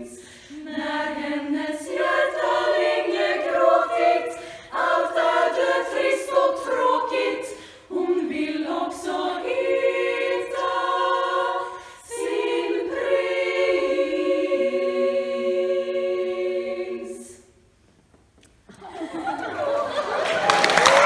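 Women's choir singing a cappella in Swedish, several phrases with short breaks between them. The song ends about three quarters of the way through, and after a moment's silence applause starts and grows near the end.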